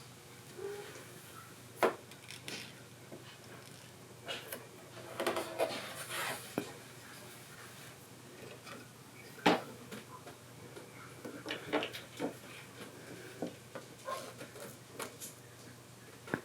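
Kittens playing in a cat playhouse: scattered light knocks, taps and rustles as they hop about and paw at it, with two sharper knocks about two seconds and nine and a half seconds in.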